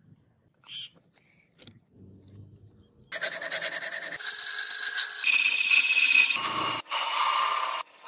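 A few faint clicks, then, about three seconds in, a lathe tool starts cutting a spinning wooden handle blank: a loud rasping scrape with high, steady whining tones, which changes abruptly several times.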